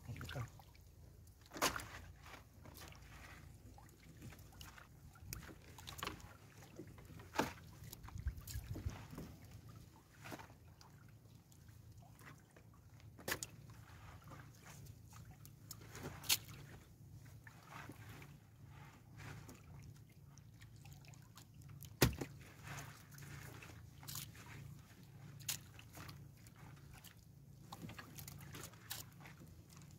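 Wet fishing net hauled by hand over a wooden boat's gunwale: water trickling and sloshing off the net, with scattered sharp knocks of net and gear against the hull over a faint steady low hum.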